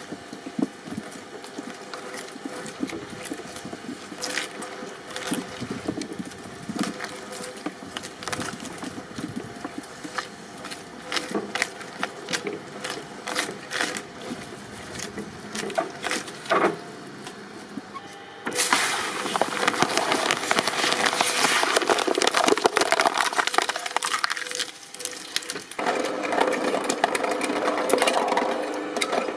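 Something being crushed in a press machine: scattered sharp cracks and snaps at first, then, about two-thirds of the way in, a sudden much louder run of dense crunching and crackling that breaks off briefly and starts again.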